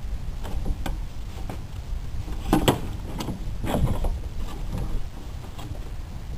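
A series of short clicks and knocks, the loudest about two and a half seconds in, over a low steady rumble.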